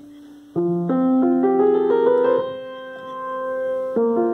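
Grand piano playing: a single held note fades, then about half a second in a chord is struck and notes climb one after another over it, left to ring together; a new chord comes in near the end.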